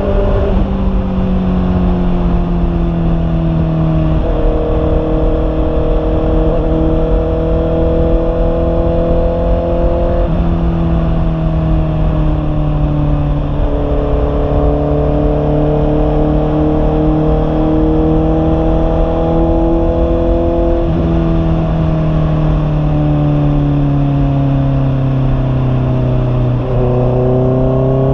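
Honda CB650R's inline-four engine with an aftermarket slip-on muffler, running under way on the road. Its exhaust note holds steady between several sudden pitch changes at gear shifts, over wind rumble on the microphone.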